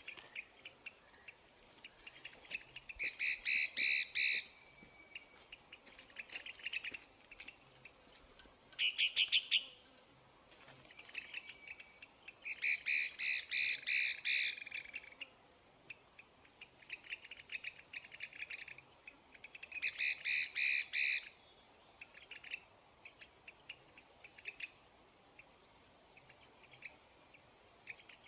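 Hwamei singing: four loud phrases of rapidly repeated notes, each lasting one to two and a half seconds, with softer calls between, over a steady high chirring of insects.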